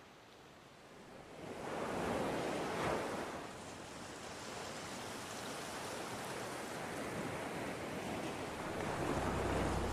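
Ocean surf breaking and washing over a shallow rocky reef: a rush of water that swells about a second and a half in, peaks near three seconds, then continues as a steady wash.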